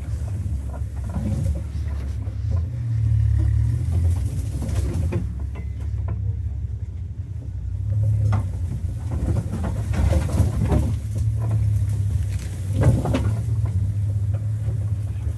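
Safari game-drive vehicle driving along, its engine and tyres a steady low rumble, with a few knocks and rattles.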